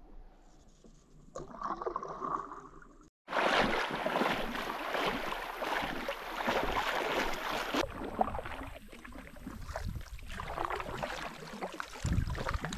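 Water rushing and splashing around a kayak paddled down a shallow river. It is faint at first, then louder with splashes, and the sound breaks off abruptly twice where short clips are joined.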